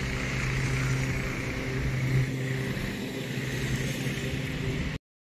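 An engine running steadily, heard as a low hum with a hiss above it, cutting off suddenly near the end.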